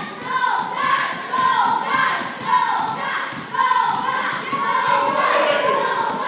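Basketballs being dribbled on a gym floor, a stream of irregular thuds, with voices calling over them.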